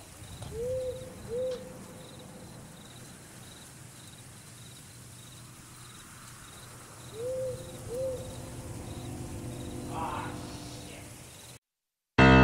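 An owl hooting twice in quick succession, and again in a second pair about seven seconds in, over crickets chirping steadily about twice a second. The sound cuts out near the end and piano music begins.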